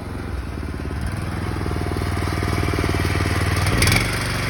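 Go-kart's small engine running and revving up, getting louder over a few seconds. Near the end there is a short loud burst, and then it settles to a lower, steadier run.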